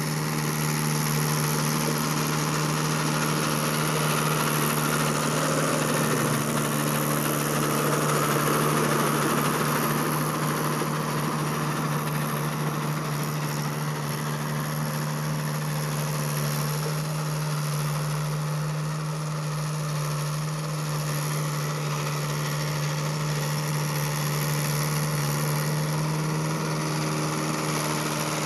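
Mahindra Yuvo 575 DI tractor's four-cylinder diesel engine running steadily under load while it pulls a rotary tiller through dry soil, with an even, unchanging drone.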